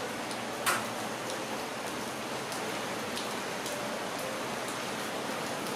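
Steady hiss of shop background noise, with a few faint clicks and one sharper click just under a second in.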